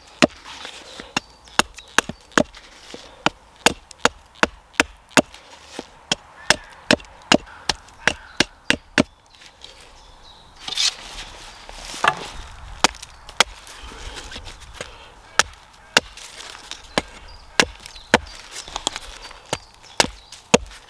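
Sharp, repeated knocks of a tool striking wood while sticks for a pot hanger are shaped and set up, about two strokes a second, with a short break about halfway through.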